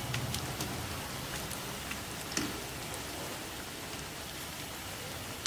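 Spinach pakoras deep-frying in hot oil, sizzling steadily, with a few small clicks.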